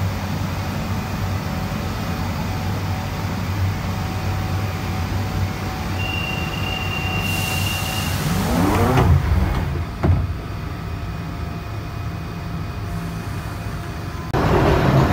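London Underground Central line train (1992 Stock) standing in the station with a steady hum. About six seconds in a high door-closing warning tone sounds for about two seconds, then the doors slide shut with a whine and a knock. Near the end the train starts to pull away and grows louder.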